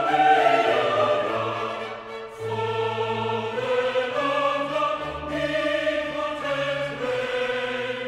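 Classical choral music: a choir singing held chords with orchestral accompaniment, the chords changing every second or so, with a brief dip about two seconds in.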